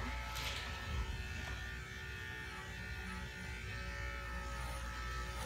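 Electric dog-grooming clippers with a #7 blade running with a steady hum, shaving the coat in reverse, against the direction of hair growth.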